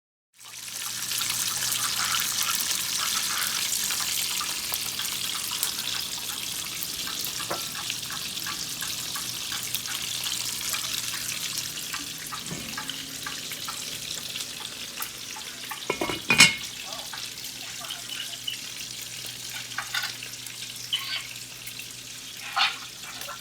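Bacon sizzling and crackling in a frying pan, a steady hiss that eases off slowly, with a few sharp knocks of a utensil against the pan, the loudest about two-thirds of the way through.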